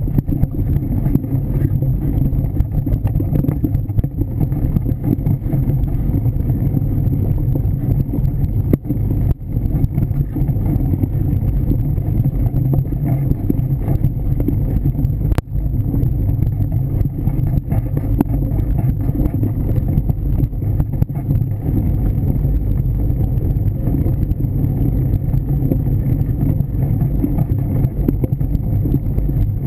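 Continuous rumble of a mountain bike riding a dirt trail, picked up by a camera mounted on the handlebars: tyre noise, rattle and wind buffeting on the microphone. A sharp click comes about nine seconds in and another about fifteen seconds in.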